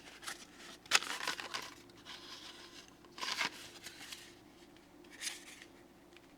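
Handling noises of packaging and a plastic spray bottle: short rustling and crinkling bursts about a second in, around three seconds in and again near five seconds, over a faint steady room hum.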